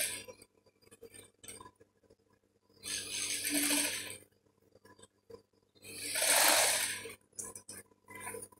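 Industrial lockstitch sewing machine stitching fabric in two short runs, one about three seconds in and one about six seconds in, each lasting just over a second. A steady motor hum runs between them.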